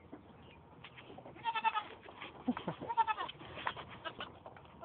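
Young goat kids bleating: short, wavering bleats about one and a half seconds and three seconds in, with scattered light taps between the calls.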